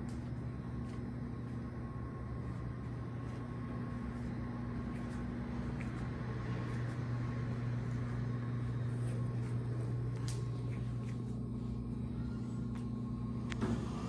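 Steady low mechanical hum in an elevator lobby, a little louder in the middle, then a sharp click near the end as an Otis elevator arrives and its doors begin to open.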